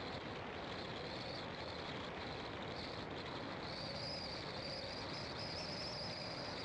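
Car driving steadily on a narrow country road: continuous engine, tyre and wind noise with no change in pace. Above it sits a steady high-pitched hum that gets a little stronger about four seconds in.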